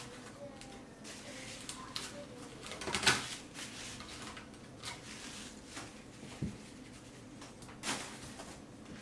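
Crumpled tissue-paper packing rustling as it is pulled out from among small plastic cups in a clear plastic box, loudest about three seconds in, with light clicks and taps of the plastic cups and box being handled.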